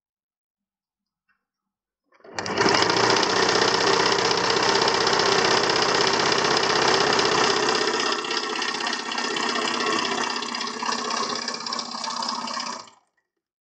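Household electric sewing machine running steadily as it stitches a seam along the fabric edge; it starts about two seconds in and stops shortly before the end.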